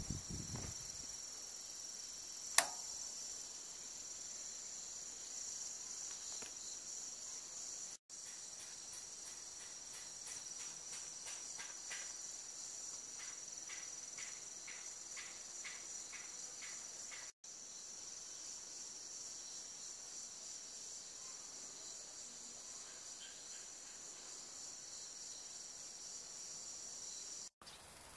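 Steady, high-pitched chorus of crickets and other insects in long grass. A second insect chirps in a rhythmic series of pulses in the middle, and there is one sharp click early on.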